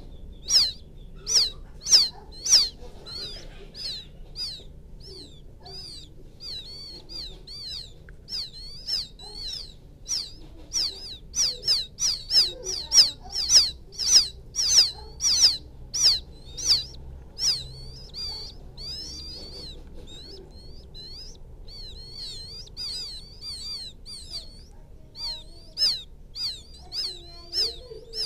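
Quail chicks peeping: short, high chirps that rise and fall, coming in quick runs of a few a second with brief lulls. These are young quail calling for the mother bird.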